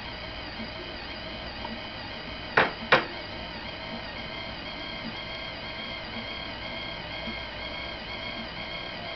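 SkipDr Premier automatic disc repair machine running with a steady, many-toned whine, some of its tones wavering slowly. Two sharp clicks, about a third of a second apart, come about two and a half seconds in.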